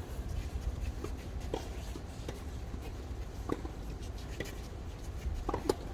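Scattered light knocks and taps of tennis play on a court, about half a dozen at uneven intervals, over a steady low rumble of wind on the microphone.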